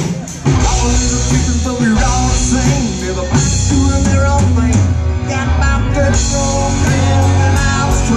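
Live rock band playing amplified through a PA: electric and acoustic guitars, bass guitar and drum kit. The music drops briefly just after the start, then the full band comes back in about half a second in.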